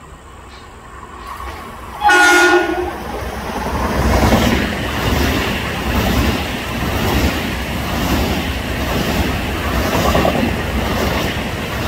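Electric commuter train sounding one short horn blast about two seconds in, a chord of several tones. The train then passes close by, its wheels rumbling and clacking over the rails as the cars roll past.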